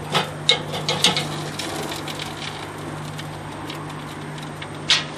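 Metal tongs clinking and scraping on the metal cooking grate of a Kamado Joe grill as a rack of ribs is lifted off. There are a few sharp clinks in the first second and a louder one near the end, over a steady low hum.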